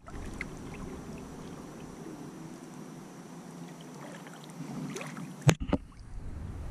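Kayak moving through water: a steady swish with small drips and splashes around the plastic hull and paddle, broken by one sharp knock about five and a half seconds in.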